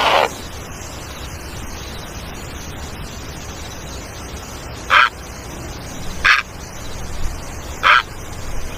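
Great egret giving short, harsh calls: one right at the start, then three more spaced about a second and a half apart in the second half, over a steady low background noise.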